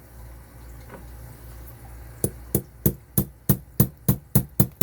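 Hammer tapping a roll pin punch to drive the roll pin out of a Yale K63 padlock body: a quick run of about nine sharp metallic taps, roughly three a second, starting a little over two seconds in.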